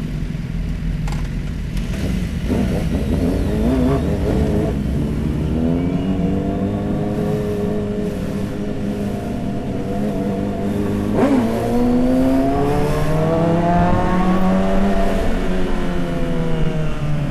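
Motorcycle engine accelerating hard: its pitch climbs for several seconds, drops suddenly at a gear change about two-thirds of the way in, then climbs again and eases off near the end. A few sharp exhaust pops are mixed in, the bike sounding as if it has a quick shifter.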